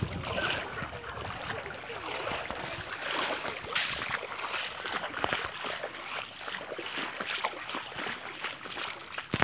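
Outdoor noise of wind and rippling floodwater, a steady rushing haze with many small clicks and knocks scattered through it.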